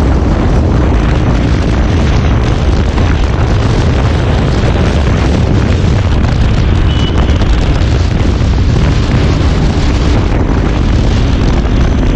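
Motorcycle riding at highway speed: heavy wind buffeting on the microphone over a steady engine rumble.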